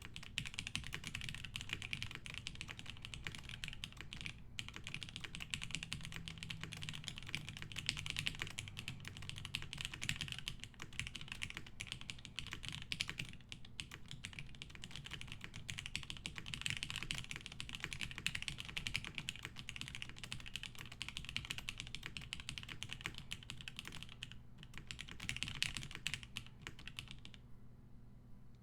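Continuous fast typing on a mechanical keyboard with broken-in Cherry MX Black linear switches, a dense run of key clacks with a couple of brief pauses. The typing stops near the end.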